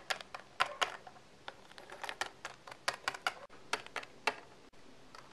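Irregular clicks and taps of small plastic toy figures and props being handled and set down on a tabletop, a few per second.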